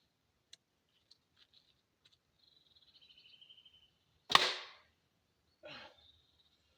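An arrow shot from a bow: one sharp crack about four seconds in with a short ringing tail, followed by a quieter rasping sound about a second later.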